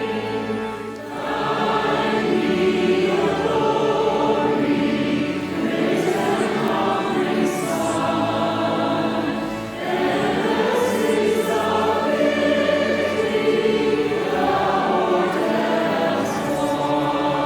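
A choir singing in long held phrases, with brief pauses for breath about a second in and again about halfway through.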